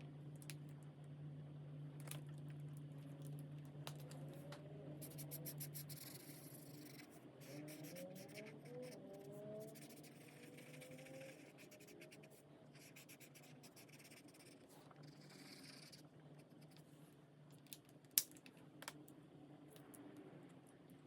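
Alcohol marker tips stroking and scratching faintly across colouring-book paper in short bursts. A low steady hum stops about six seconds in, and a couple of sharp clicks come near the end.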